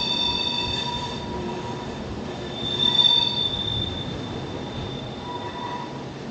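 Mont-Blanc Express metre-gauge electric train coming down a curving track, its wheels squealing in high steady tones over a low rumble. The squeal sounds once at the start and again, louder, about three seconds in.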